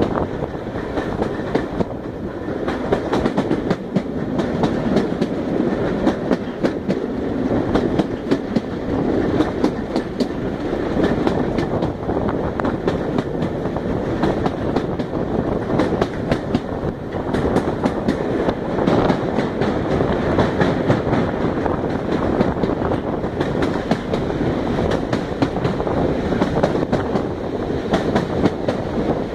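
Railway passenger carriage running along the line, heard from an open window beside it: a steady rushing rumble of the moving train with frequent sharp clacks of the wheels over the rails.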